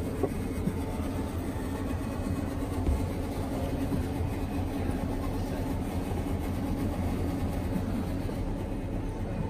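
Steady low rumble of room background noise, with a light knock just after the start.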